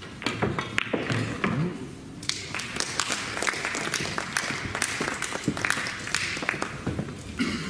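Pool balls clicking as a shot is played, followed about two seconds in by audience clapping that lasts for several seconds.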